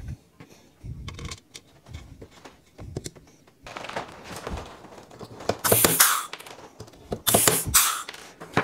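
Rubber glazing gasket being worked into an aluminium camper window frame: scattered light clicks and taps, then two loud scraping bursts of about half a second each, a second and a half apart, near the end.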